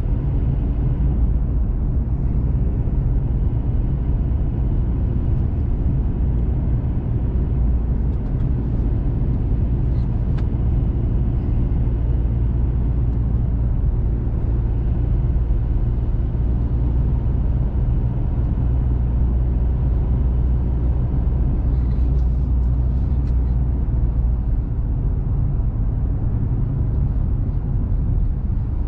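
Steady low rumble of road and engine noise inside the cabin of a diesel four-wheel-drive vehicle driving along, with a few faint ticks.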